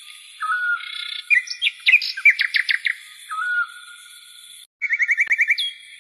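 Songbirds chirping and trilling: a short rising call repeats every few seconds, and quick trills of about eight notes a second come twice, over a steady high-pitched hum.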